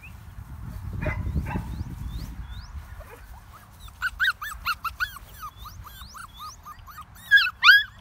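A puppy whining and yelping in short, high, arched calls, a few a second, starting about halfway through. The two loudest yelps come near the end.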